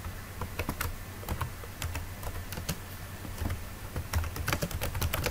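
Typing on a computer keyboard: a quick, irregular run of key clicks as a short phrase is typed.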